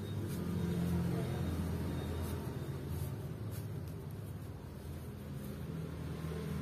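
Sewing machine motor running with a steady low hum, with a few faint clicks over it.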